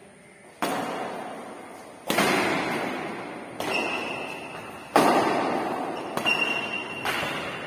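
Badminton rackets striking a shuttlecock in a rally: six sharp hits, about one every second and a half, each ringing on in the echo of a large bare hall.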